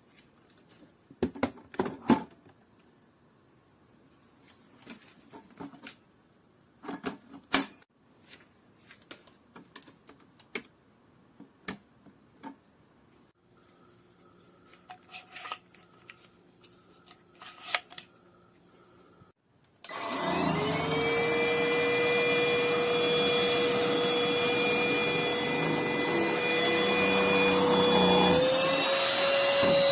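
Scattered plastic clicks and knocks of a cordless stick vacuum being handled, then its motor switches on about two-thirds through with a whine that rises as it spins up and settles into a steady run. Shortly before the end the whine steps up in pitch, as from a higher power setting.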